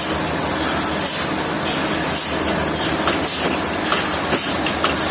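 Steady mechanical din with short hissing puffs, roughly one or two a second, over a continuous rumble.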